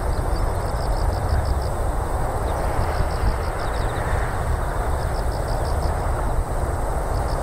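Open-air ambience: a steady low rumble with a hiss. Runs of rapid high chirps, each about a second long, come back every two to three seconds.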